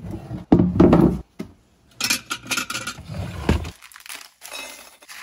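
Rustling, crinkling and knocking of things being handled and set out on a table. There is a heavy knock or thud about half a second in, then a quick run of sharp crinkly strokes around two to three and a half seconds in.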